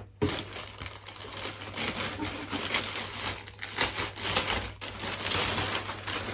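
Plastic packaging bag crinkling and crackling as it is pulled and torn open by hand, a dense run of many small sharp crackles.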